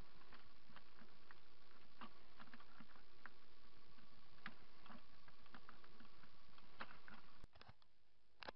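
Scattered small clicks and taps of hands handling electrical wiring and a hand tool inside a fibreglass boat console, over a steady background hiss. The sound drops away abruptly near the end, leaving a couple of faint clicks.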